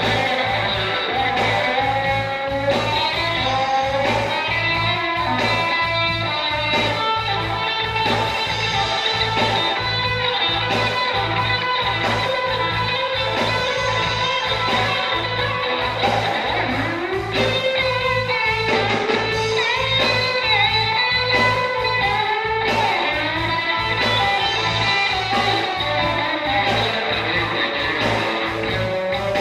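Guitar-led music with a steady beat and no transcribed vocals.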